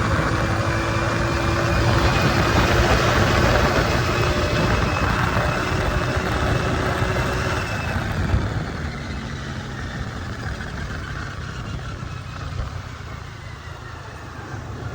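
A vehicle's engine running with road and wind noise while travelling. It is louder for the first half, then eases off to a quieter run.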